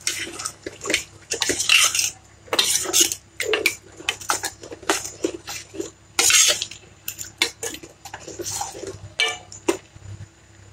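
Steel spoon stirring liquid gravy in a stainless steel pot, clinking and scraping against the pot's sides in quick, irregular strokes; the stirring stops near the end.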